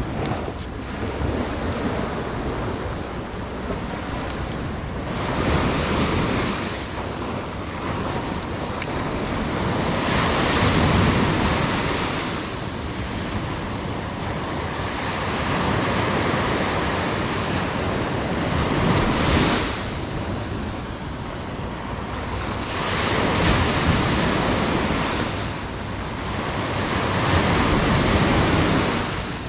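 Small ocean waves breaking and washing up a sandy beach, the rush of surf swelling and fading every few seconds.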